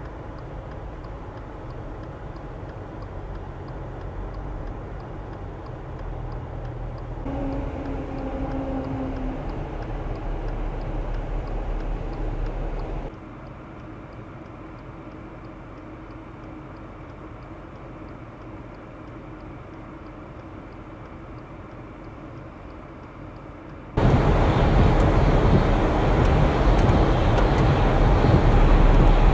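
Outdoor highway ambience in several cuts: steady vehicle and road noise on wet pavement, with a faint steady hum in the middle sections. About 24 seconds in it jumps to a much louder, steady rush of truck engine and tyre noise behind a snowplow.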